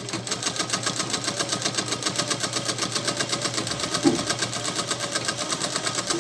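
Domestic straight-stitch sewing machine running steadily, its needle stitching through thin fabric in a fast, even clatter. A short low knock sounds about four seconds in.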